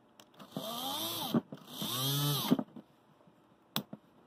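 Makita 6093D cordless drill's small DC motor, run off its battery on the bench, spinning up and winding down twice in a row with a rising then falling whine, followed by a couple of sharp clicks. It is a run test after cleaning the corroded battery terminals, and the motor runs.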